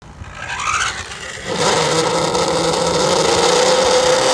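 Electric radio-control car motor whining, building up over the first second and a half and then holding a steady, slightly wavering whine over road and tyre noise.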